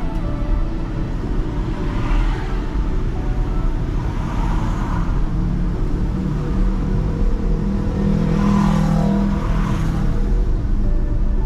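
Road and traffic noise from a car driving through city streets: a steady rumble with other vehicles passing, the loudest about eight to ten seconds in.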